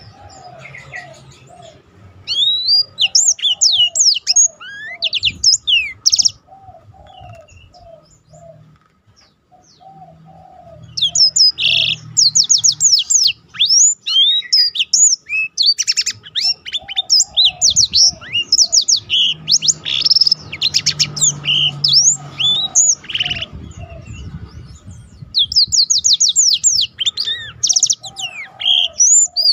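Black-throated canary singing a fast rolling song of high trills and twittering phrases, in bouts that break off briefly twice.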